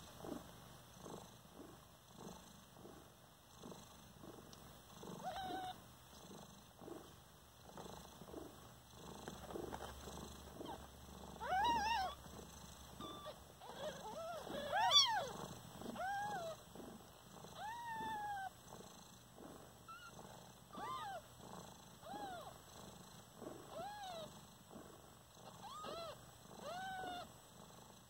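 Mother tabby cat purring steadily while nursing newborn kittens. From a little before halfway on, short, high, arched mews from the newborn kittens come every second or two over the purring.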